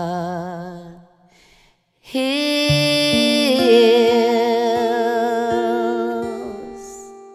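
Background music: a slow song with a voice holding long wavering notes over plucked guitar. The voice fades about a second in, returns after a short break, and the music fades away near the end.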